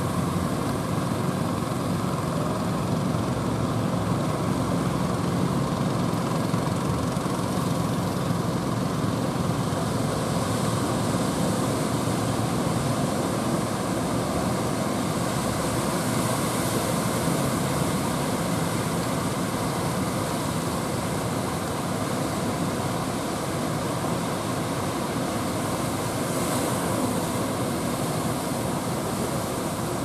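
Heavy surf breaking along the shore, a steady, unbroken noise of the sea with a low rumble underneath.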